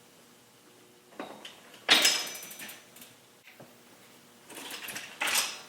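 Metal clanks and rattles from a Schwinn mountain bike being worked on as a wheel is taken off. There is one sharp, ringing clank about two seconds in and a burst of smaller clatter near the end.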